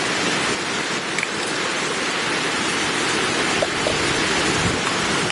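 Steady rain, an even hiss without breaks.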